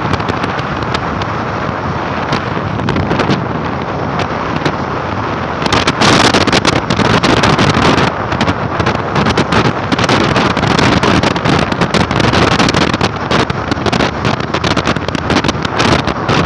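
Wind rushing and buffeting over the microphone of a phone carried on a moving motorcycle, with the ride's road noise beneath. The buffeting grows louder about six seconds in for a couple of seconds, then settles back.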